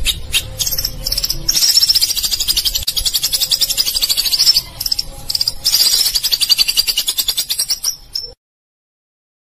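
Recorded high-pitched, rapidly pulsing animal trill played as masteran, a tutor sound for training white-rumped shama to sing. It runs in long pulsing phrases with a short dip in the middle, then cuts off abruptly about a second before the end.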